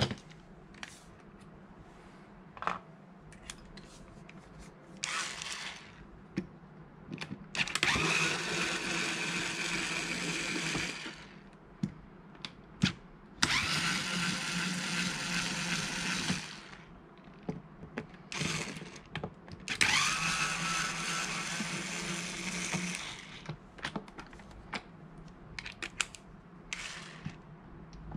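Cordless electric screwdriver running in bursts on the corner screws of a plastic enclosure, three long runs of about three seconds each, each starting with a rising whine as the motor spins up. Clicks and knocks of handling come between the runs.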